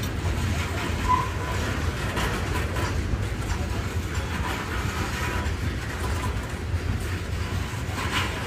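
A train of loaded coal hopper cars rolling past: a steady low rumble of steel wheels on the rails, with occasional clacks.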